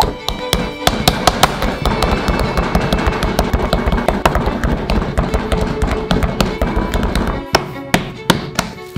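Dough kneaded and pressed by hand on a floured wooden board: a dense run of soft thuds and taps that stops suddenly about seven and a half seconds in, over background violin music.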